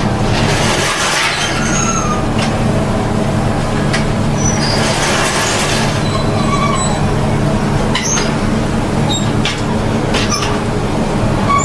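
A machine running with a steady low hum, with a few short clicks and taps scattered through it.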